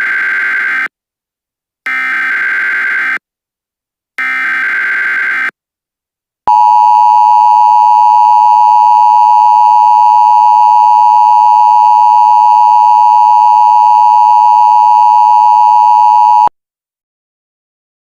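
Emergency Alert System broadcast opening: three short bursts of SAME header data tones, each a little over a second long, followed by a loud, steady attention tone that holds for about ten seconds and then cuts off abruptly.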